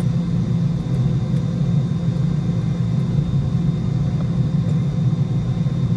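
Steady low cabin rumble of a Boeing 717 taxiing after landing, its rear-mounted Rolls-Royce BR715 turbofans running near idle, with a thin high whine held steady above it.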